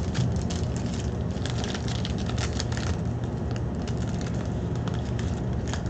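Packaging on a sealed 2018 Topps Tier One baseball card box crinkling and crackling as it is opened, in many irregular small crackles, over a steady low hum.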